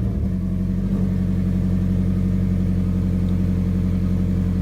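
2004 Subaru Impreza WRX STI's turbocharged 2.5-litre flat-four engine idling steadily, just after start-up following the replacement of a broken oil control valve.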